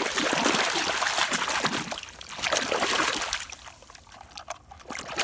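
Water running and splashing over a muddy toy car as it is washed clean. The splashing eases briefly about two seconds in, then goes much quieter in the second half.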